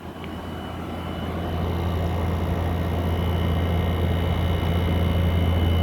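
2024 Midea 5,000 BTU window air conditioner running on cool with its compressor on: a steady low hum with a faint high whine over it, growing louder over the first two seconds and then holding steady.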